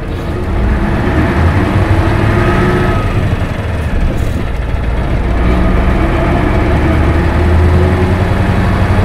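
1996 Isuzu Cubic KC-LV280N city bus's diesel engine pulling the bus away, heard from inside the passenger cabin: the engine note grows louder about half a second in, eases briefly around four seconds in at a shift of the manual gearbox, then builds again.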